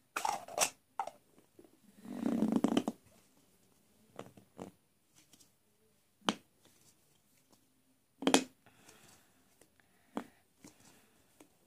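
Small plastic toy parts handled and pressed onto a plastic ball: scattered clicks and taps, with a longer scuffing noise about two seconds in.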